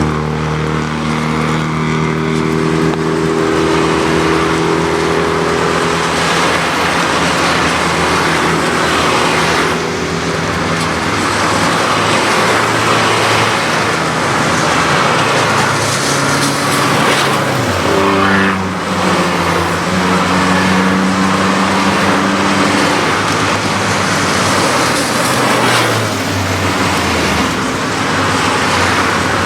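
Citroën C1 race car's engine running steadily under load. Its pitch drops and then climbs again about two-thirds of the way through, and drops once more near the end, as the gears change. A steady hiss of tyres on a wet track runs underneath.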